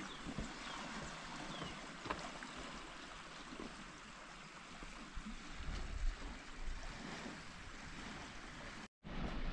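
Steady outdoor noise with a few faint high chirps. A low rumble joins about two-thirds of the way through, and the sound cuts out for a moment near the end.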